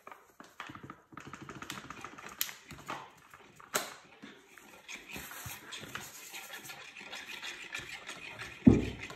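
Paper flour bag crinkling and rustling as flour is shaken out of it, then a metal fork scraping dough around a ceramic bowl, with one loud thump near the end.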